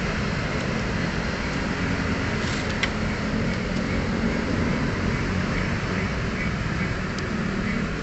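Steady background vehicle noise with a low hum, with a few faint clicks about two and a half to three seconds in.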